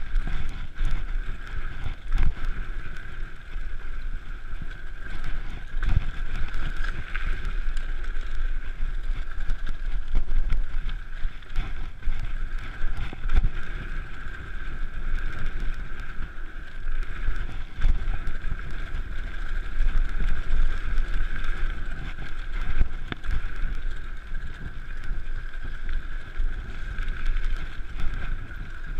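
Mountain bike rolling fast down a dirt and gravel trail: steady tyre and drivetrain noise with heavy wind buffeting on the microphone and scattered knocks as the bike hits bumps.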